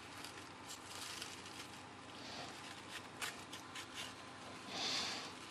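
Faint scratching and small clicks of a metal probe picking at the wet, gritty granular fill of an opened electrochemical oxygen sensor, with a brief soft rustle near the end.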